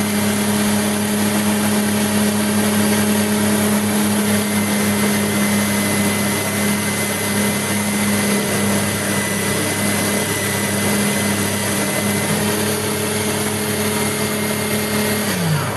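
Homemade tool post grinder running: a 775 DC motor belt-driving a small spindle with a sanding drum, giving a steady motor hum and a high whine while it sands out the bore of a fitting turning in the lathe chuck. The motor winds down and stops near the end.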